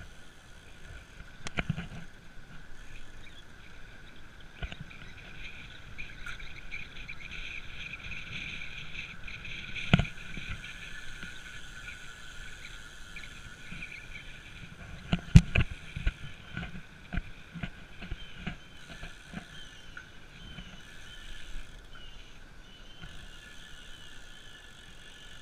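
Recumbent trike rolling along a paved trail: a low rumble of tyres on asphalt with scattered sharp knocks and rattles from the frame, the loudest about fifteen seconds in. Over it a steady high-pitched chorus from the surrounding woods, with small repeated bird chirps near the end.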